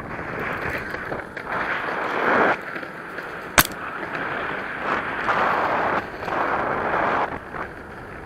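Electric skateboard rolling along a paved trail on its 90 mm urethane wheels: a steady rush of wheel and road noise mixed with wind on the microphone, rising and falling in level, with one sharp click about three and a half seconds in.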